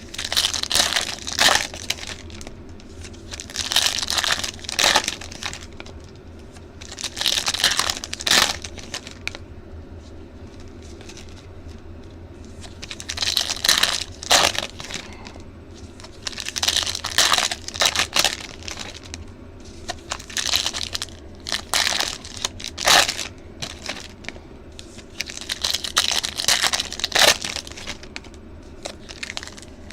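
Foil trading-card pack wrappers being torn open and crinkled by hand, in bursts of a second or two with short pauses between them, over a faint steady hum.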